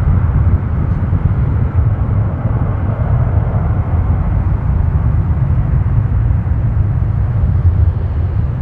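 Boeing 767-300 twin jet engines running at high power as the airliner rolls down the runway, a steady loud low rumble.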